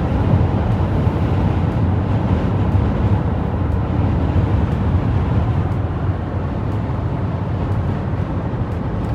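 Steady road and wind noise inside a moving car's cabin at highway speed: a constant low rumble with a hiss above it.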